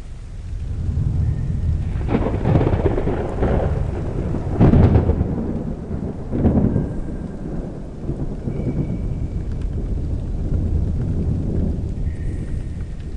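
Thunder rolling over steady rain. The rumble swells, peaks in a loud crack about five seconds in with another about a second and a half later, then rolls on and fades.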